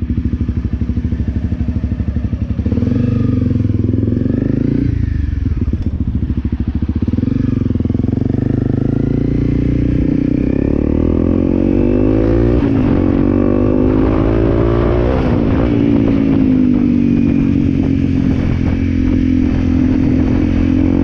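Honda CRF250L's single-cylinder four-stroke engine pulling away and accelerating on the road. Its note climbs with the revs and drops sharply at two upshifts in the second half, then runs steadily at road speed.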